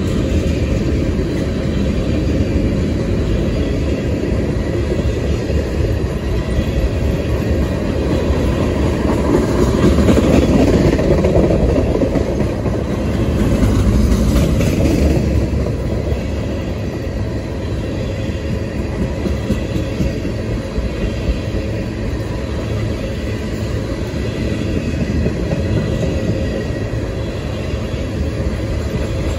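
Freight train rolling past, its cars running steadily over the rails, swelling twice near the middle.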